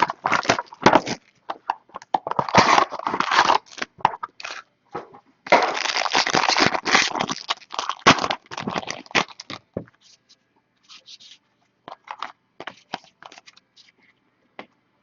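Trading card packaging being torn open and crinkled, with dense crackling that is heaviest around the middle. Near the end it thins to a few light clicks and rustles as the cards are handled.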